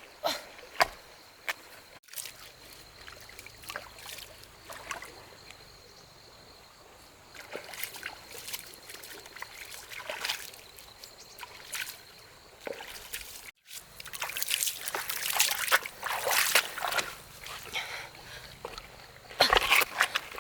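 Water sloshing and splashing in irregular spurts, with a trickle, as something is worked by hand in water. It is busiest after the middle and near the end.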